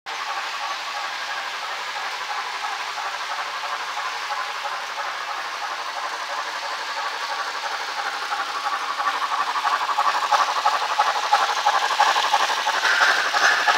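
HO scale model train running on the layout's track: a steady mechanical rattle of the locomotive and cars on the rails, growing louder from about nine seconds in as the Rock Island M-50a 4-8-2 steam locomotive model comes close.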